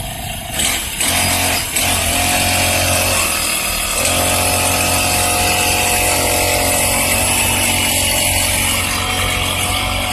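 Small engine of a motorized paddy weeder speeding up from idle about half a second in, then running steadily at high speed, with a couple of brief dips in speed early on.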